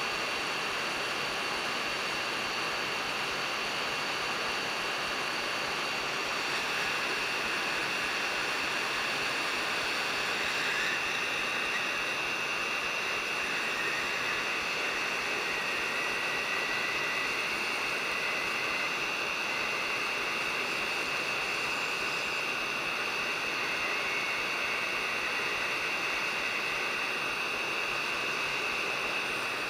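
Hot air rework station blowing steadily, a constant hiss with a high whine, heating the board to reflow leaded solder under a replacement charge-controller chip.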